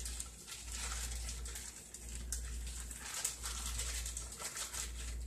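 Plastic zip-top bag filled with raw omelet mixture rustling and crinkling irregularly as it is squeezed and handled.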